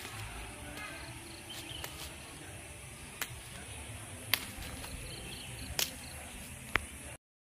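Woodland ambience: a steady high insect drone over a low rumble, with a few sharp clicks scattered through it. The sound cuts off suddenly near the end.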